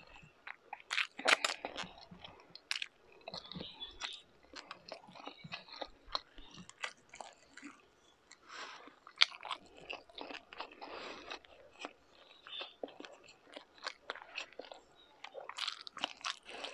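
A person chewing and biting mouthfuls of beef tapa, pork tocino and rice: irregular wet clicks and crunches, with a louder cluster about a second in and a sharp click about nine seconds in.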